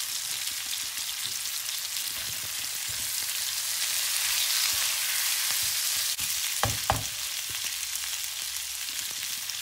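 Snow peas and onions sizzling in hot oil in a nonstick wok on a gas hob, stirred with a spatula. The sizzle is a steady hiss that swells a little in the middle. Two short knocks come about two-thirds of the way through.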